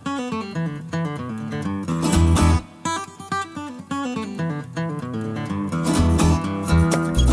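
Background music led by an acoustic guitar playing runs of picked notes over low bass notes.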